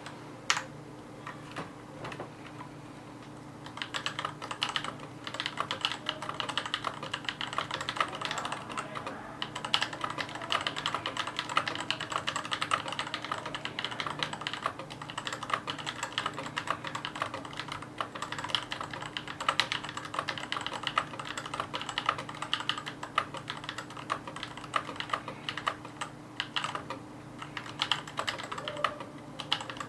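Mechanical keyboard being typed on: a few isolated key clicks, then fast continuous typing from about four seconds in, with a short lull near the end.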